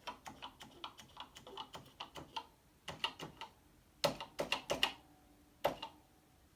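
Keys of a Commodore PET 8032 business keyboard being pressed one after another during a key-by-key test: a quick run of light clicks in the first couple of seconds, then a handful of heavier key strokes.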